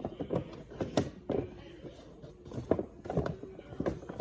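Plastic fidget toys being handled: irregular clicks and taps, with a sharper knock about a second in.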